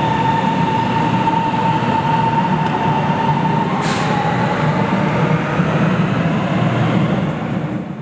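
Shanghai Metro Line 2 train pulling out behind the platform screen doors: a loud steady rumble of wheels on rail with a high whine that weakens about halfway through. A single sharp click about four seconds in, and the sound dies away near the end as the train leaves.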